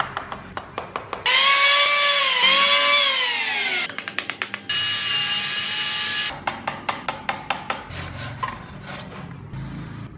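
Compact trim router's motor running in two bursts of high whine: in the first its pitch dips and then falls away; the second is steady and cuts off suddenly. Between and around them come runs of quick, regular taps or strokes, about four or five a second.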